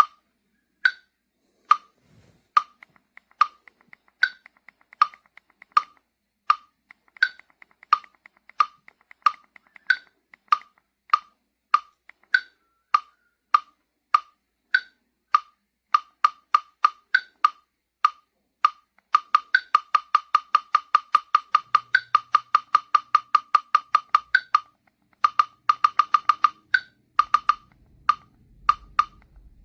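Donner digital metronome clicking steadily at a moderate tempo in four, a higher-pitched accent click on the first beat of each bar. Past the middle the tempo is raised to a very rapid run of clicks, then brought down again to a slower beat.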